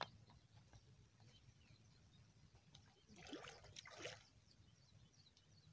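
Two short splashes about three and four seconds in, from objects thrown by hand landing in the water, after a brief sharp click at the very start.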